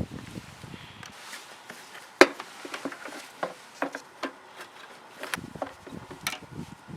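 Scattered clicks and knocks of hands working on something, the sharpest knock about two seconds in.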